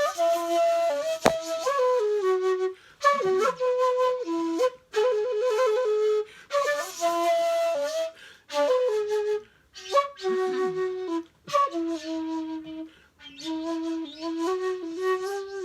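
A solo flute-like wind instrument playing a simple melody of held notes in short phrases, with a trill about five seconds in. There is a single brief click about a second in.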